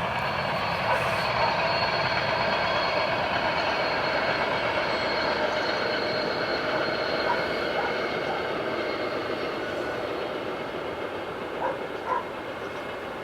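A train running by: a steady rumbling noise with several held tones that slowly fades as it moves away. Two short sharp sounds come near the end.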